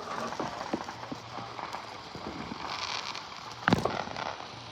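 Fireworks going off: a short hissing crackle, then one sharp, loud firecracker bang near the end, with smaller pops scattered around it.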